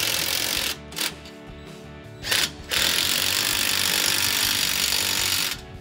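Cordless drill with a 15 mm socket spinning down the nuts of the exhaust band clamps on a new muffler. It runs in spurts: a short run at the start, two brief blips, then a long steady run of about three seconds that stops just before the end.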